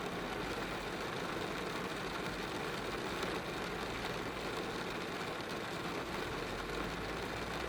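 Steady rain falling on a car's roof and windows, heard from inside the cabin as an even wash of drops.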